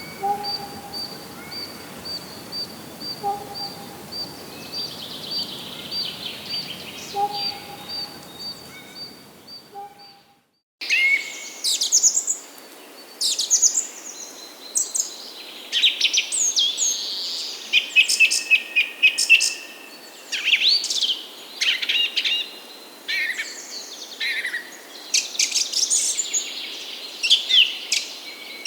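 Songbirds calling outdoors in two separate recordings. In the first, a single high note repeats about three times a second, with an occasional lower call. After a brief break about ten seconds in, several birds sing busily over each other with quick trills, chirps and whistles.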